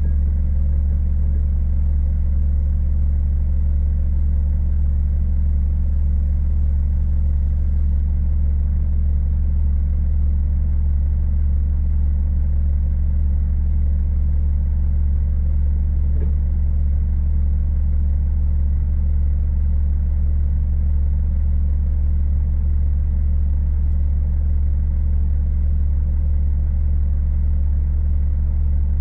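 Heavy diesel truck engine idling steadily, a constant low hum, from a Scania S500 sitting bogged down.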